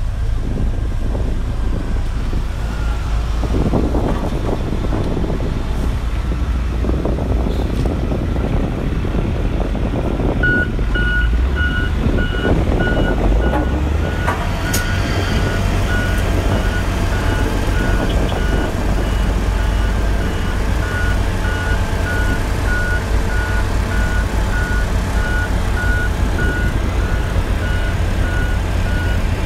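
Hamm 3410 single-drum road roller's diesel engine running with a steady low rumble. About ten seconds in, a reversing alarm starts beeping about twice a second and keeps on.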